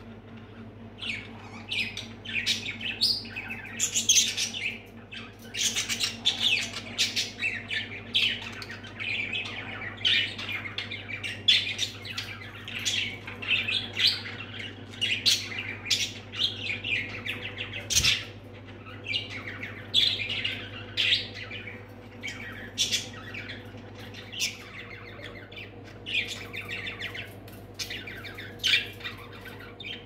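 Budgerigars chattering: a quick, continuous run of short squawks and chirps in the cage, over a steady low hum.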